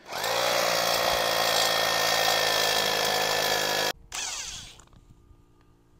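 Corded electric drill boring an anchor hole into a poured concrete foundation: the motor spins up with a slight rising whine, runs loud and steady for about four seconds, then is released and winds down with a falling whine.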